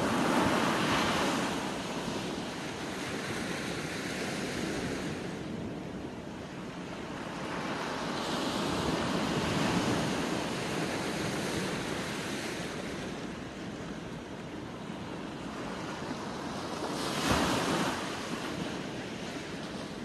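Small sea waves washing in and out, swelling and ebbing every several seconds, with one sharper surge near the end.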